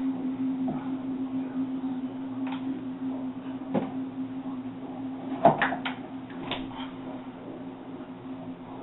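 A few sharp knocks and clicks, the loudest a little past halfway, over a steady low hum.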